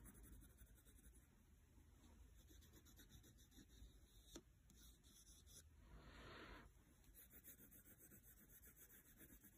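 Faint scratching of a wax crayon coloring on sketchbook paper, with a light click about four seconds in and a short rub a couple of seconds later.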